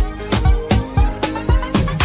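Music with a fast, steady drum beat: a deep bass drum hits about three times a second under pitched melodic notes.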